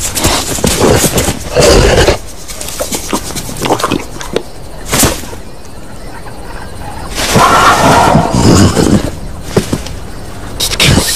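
Cartoon soundtrack with loud animal roars: one in the first two seconds, a short blast about five seconds in, and a longer one from about seven to nine and a half seconds in.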